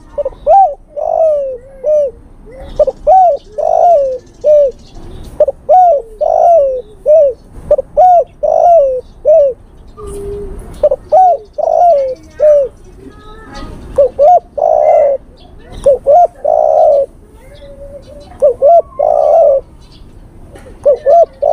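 Male spotted dove cooing in repeated phrases of short, rising-and-falling notes, with brief pauses between phrases and a longer break about ten seconds in. This is its call to a female, used as a lure call.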